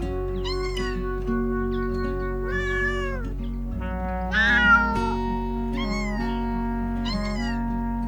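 A cat meowing about five times, with the loudest and highest meow about four and a half seconds in, over background music of slowly changing held chords.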